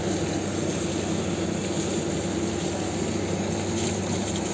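Steady drone of running machinery, an even noise with a low, unchanging hum underneath.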